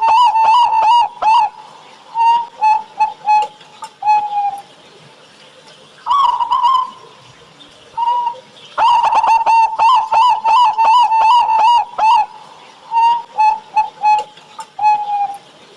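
Zebra dove (perkutut) cooing: a fast run of short coos, then a few spaced, longer notes ending in a lower drawn-out coo. The phrase comes twice, its second fast run from about nine to twelve seconds in.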